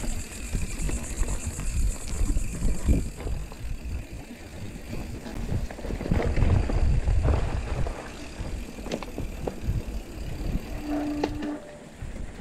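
Mountain bike ridden over a sandy dirt trail: wind buffeting the bike-mounted action-camera microphone over the tyres rolling on the trail, with scattered rattles and knocks from bumps. A brief steady squeal sounds near the end.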